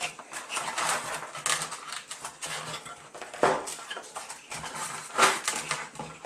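Plywood battery bay being pushed and worked into the foam body of a Zephyr 2 flying wing for a test fit: scraping and rubbing with irregular clicks and knocks, the two loudest knocks about three and a half and five seconds in.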